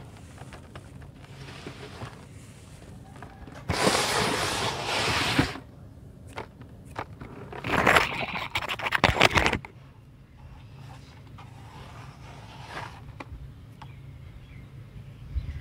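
Hands crumbling and squeezing dry red dirt clumps, making a gritty crunching and rustling. It comes in two loud spells, about four seconds in and about eight seconds in, and the second is full of small crackles.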